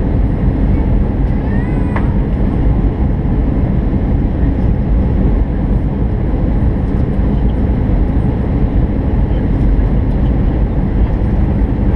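Steady roar of airliner cabin noise inside an Airbus A319 beside the wing-mounted jet engine: engine and airflow noise during the landing approach, strongest in the low end and unchanging throughout.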